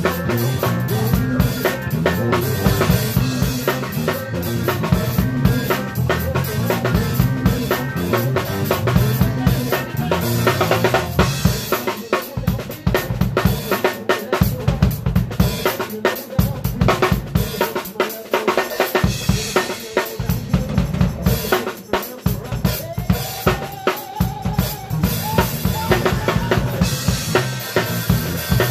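Live band playing an upbeat soul-funk groove, with a drum kit loud and close: a busy pattern of snare, bass drum, rimshots and cymbals over bass-guitar notes.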